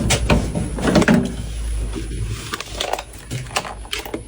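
Scattered knocks and clicks of handling, with a low rumble during the first two seconds.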